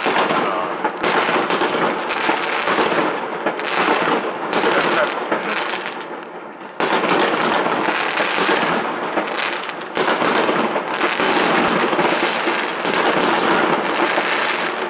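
Aerial fireworks barrage with dense, rapid bangs from many shells bursting overhead. It eases off around six seconds in, then comes back suddenly about a second later, and there is another brief lull and restart near ten seconds.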